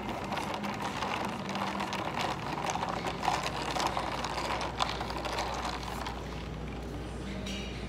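A drink stirred with a straw in a plastic cup with a dome lid: rapid clicking and rattling against the plastic, easing off about six seconds in.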